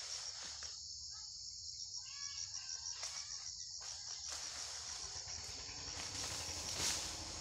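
Insects chirring steadily in a high, fast-pulsing drone, with a few short bird calls about two seconds in and a brief swish near the end.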